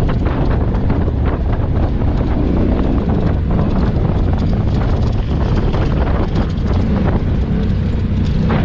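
Motorcycle engine running steadily as the bike rides a gravel road, under a heavy low rumble of wind on the onboard microphone.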